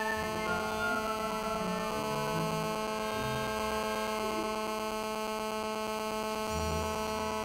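A steady electrical buzz: one unchanging pitch with many overtones, covering the sound track, with orchestral music faintly audible beneath it.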